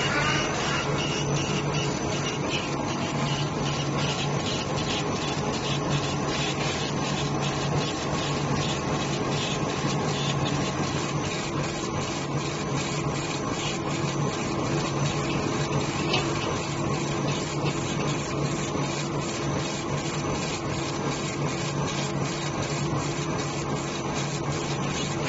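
Laser engraver raster-engraving a rubber stamp sheet: the head shuttles back and forth, with a regular rasping pulse about three times a second as it reverses over a steady low hum.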